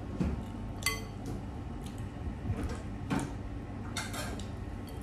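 Metal fork clinking and scraping against a glass bowl of noodle soup, with one bright ringing clink about a second in and further clinks and scrapes near the end, along with the sounds of slurping noodles.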